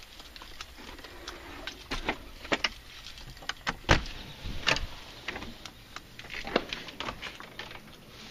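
Scattered clicks and knocks from a front door being unlocked and opened: a brass deadbolt lock and the door hardware being handled. The loudest knock comes about four seconds in.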